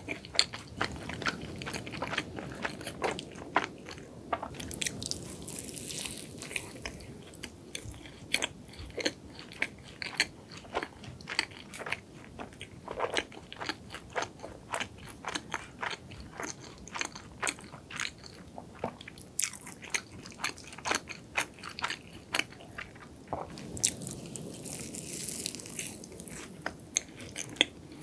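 Close-miked chewing of a cronut, a croissant-dough doughnut, with its flaky glazed layers crunching in many quick small crackles throughout.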